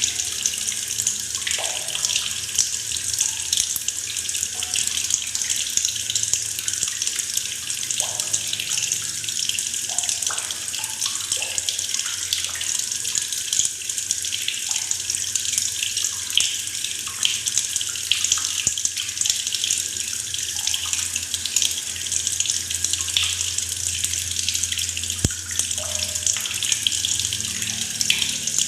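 Tap water pouring steadily into a plastic bucket of water, a continuous splashing rush with small gurgles and bubbles popping through it.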